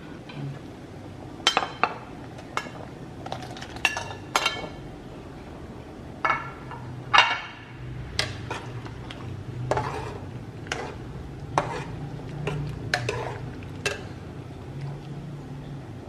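Utensils clinking and knocking against pots and dishes: a string of irregular sharp clinks with short ringing, some twenty in all, over a low steady hum.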